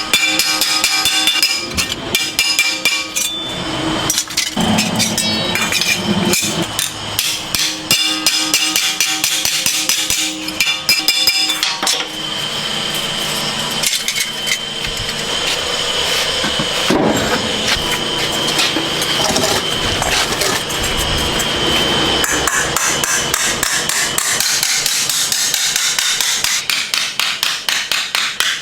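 Hammer blows on metal, struck rapidly with ringing from the workpiece; near the end they settle into an even rhythm of about five strikes a second.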